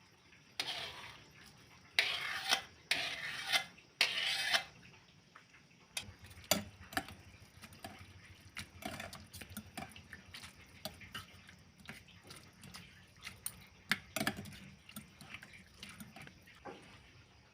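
Metal cooking utensils scraping and clinking against a pan and dishes. There are four short scraping strokes in the first five seconds, then a string of light clinks and knocks.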